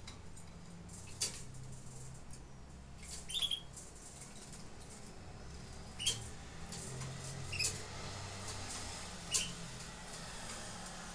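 Canaries giving short, sharp chirp calls about five times, spaced a second or two apart, over a faint steady low hum.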